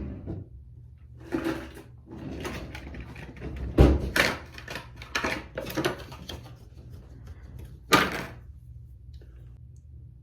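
Objects being handled: a series of clattering knocks and rustles, with sharper knocks about four seconds in and again near eight seconds.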